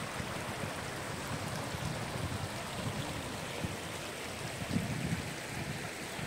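Shallow stream running over rocks and pebbles: a steady rush and trickle of water.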